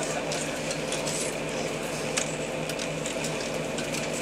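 Steady low motor hum on board a yacht, pulsing evenly, with a few faint clicks over it.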